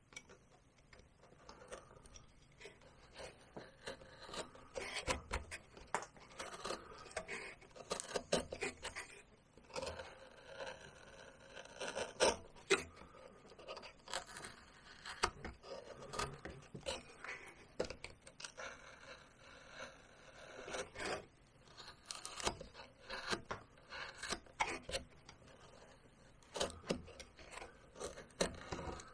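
Small carving knife paring and scraping cottonwood bark in short, irregular strokes, each cut a brief scratch with sharp little clicks.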